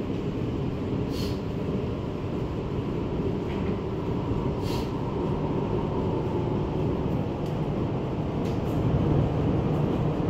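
MTR M-Train metro train running into a station: steady wheel-and-motor rumble with a few short high-pitched clicks, growing a little louder near the end.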